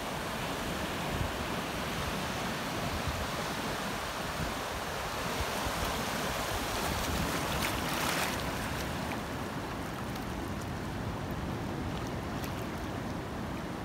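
Small ocean waves washing in over the shallows, a steady wash with a louder surge of foamy water about eight seconds in. Wind rumbles on the microphone throughout.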